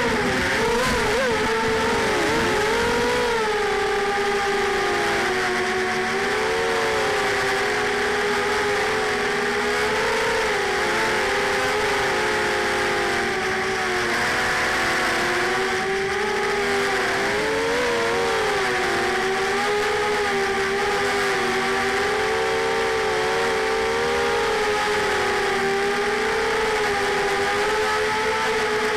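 Racing quadcopter's four small brushless motors (FXC-1806 2300kv) and 5030 propellers whining in flight, a continuous buzz whose pitch wavers down and back up every few seconds as the throttle changes.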